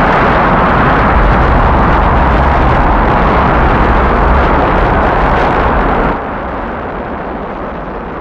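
Rocket main engines firing at liftoff: a loud, steady rumble with a heavy deep low end. About six seconds in it drops suddenly to a quieter, duller rumble.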